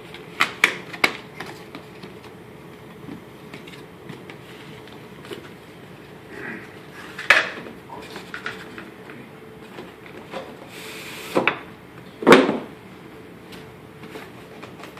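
Cardboard graphics-card packaging being handled: a few quick taps in the first second, then scattered knocks of the boxes against a wooden table, with a short scraping slide just before the loudest knocks near the end. A faint steady hum runs underneath.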